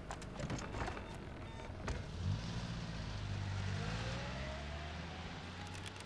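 A car's engine running as it pulls up and moves off slowly past a raised checkpoint barrier, coming in strongly about two seconds in and fading near the end, with a faint rising whine in the second half. A few sharp knocks come in the first two seconds.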